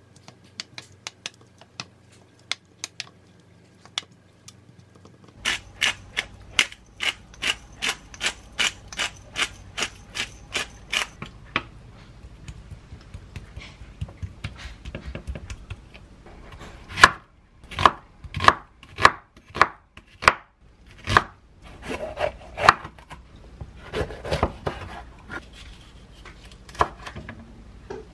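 Wooden spoon working cubed raw beef in a stainless steel tray, mixing in its marinade: a quick run of regular scraping, tapping strokes, then slower, heavier strokes.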